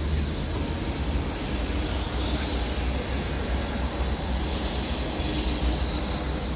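Steady low rumble with an even hiss over it: wind buffeting the microphone at an open high-rise window, over distant road traffic far below.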